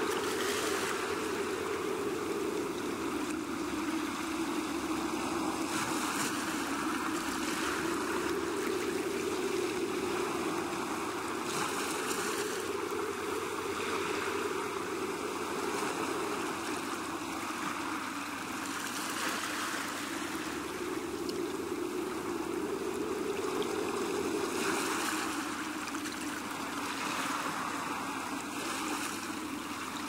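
Sea waves washing on the shore: a steady wash of surf with a louder, hissing wave breaking about every six to seven seconds.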